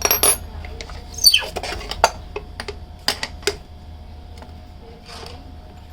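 Handling and unscrewing an exhaust fan's motor mounting: a few sharp metallic clicks and clinks of tool and screws, with a short falling squeak about a second in.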